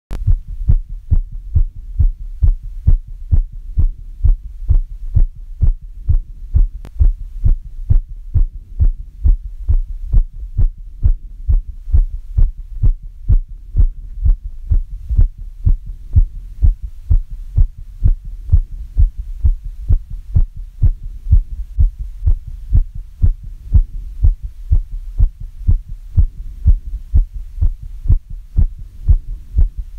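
A human heart beating in a steady, even rhythm of low thumps, recorded close to the chest. It is the heart recovering after exercise.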